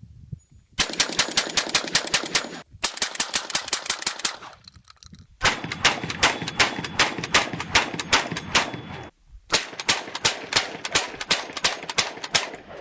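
Benelli M2 semi-automatic 12-gauge shotgun fired in four rapid strings of shots, several a second, with short breaks between the strings.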